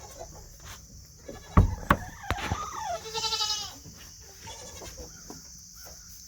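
A goat bleats once, a short wavering call about three seconds in. Just before it come a few sharp knocks.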